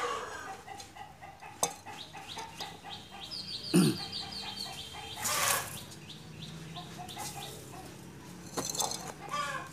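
Chickens clucking in the background, with small quick bird chirps about three to four seconds in. A sharp knock about four seconds in comes as a plastic hanging pot is put on the table. Rustling and scraping later on come from a woven bamboo basket of potting mix being handled.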